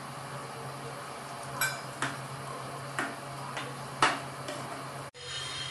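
Steel spoon and ladle knocking against the rim and sides of a steel pan while a thick curry is stirred: a handful of sharp metallic clinks spaced unevenly, over a steady low hum. The sound drops out abruptly near the end.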